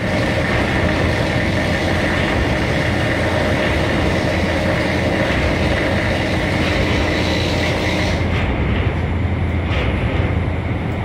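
Steady drone of ship machinery: a deep hum with constant whining tones above it. The high hiss thins out about eight seconds in.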